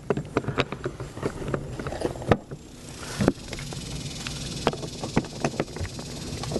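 Scattered clicks and knocks of packaging and plastic parts being handled during the unboxing of an evaporative cooling fan, with two sharper knocks about two and three seconds in.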